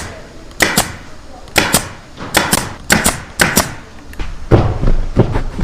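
Sharp knocks from work on sofa parts, mostly in quick pairs about once a second, with a few heavier, deeper thuds near the end.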